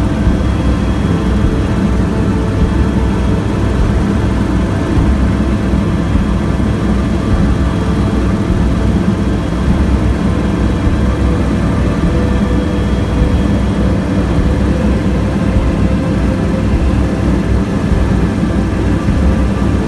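Helicopter in flight heard from inside the cabin: the engine and rotor make a steady low rumble, with faint steady whining tones above it.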